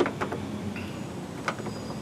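Sharp clicks and light knocks of a replacement door lock cylinder being worked into a Ford Ranger door: one click at the start, a couple of softer taps just after, and another click about one and a half seconds in.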